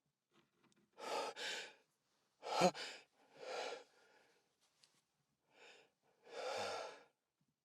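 A person breathing heavily and sighing between bouts of sneezing: about five separate noisy breaths, the sharpest and loudest one about two and a half seconds in.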